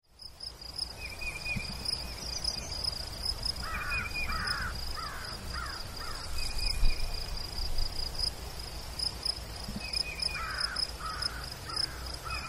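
Woodland ambience: a bird calls in two runs of four or five harsh calls, over a steady, rapidly pulsing high insect chirp. It fades in at the start.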